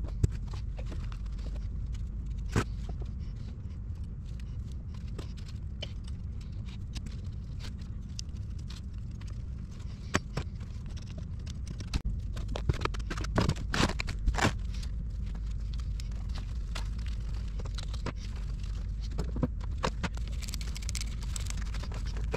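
Scattered light clicks and knocks of a turbocharger and its wastegate vacuum actuator being handled and fitted in a cardboard box, busiest about halfway through, over a steady low rumble.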